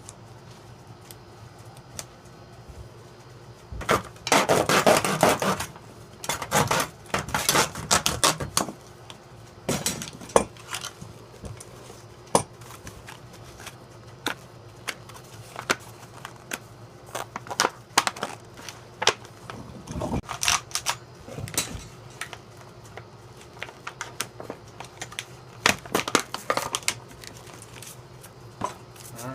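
Packaging being handled and opened: irregular crinkling and rustling bursts, the longest about four seconds in, with scattered clicks and small knocks.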